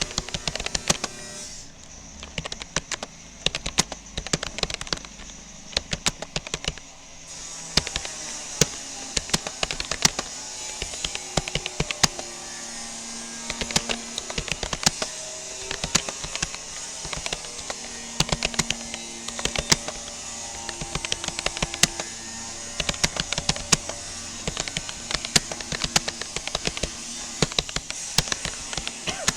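Steady touch-typing on a Rapoo computer keyboard: keys clicking irregularly, several strokes a second, over soft background music.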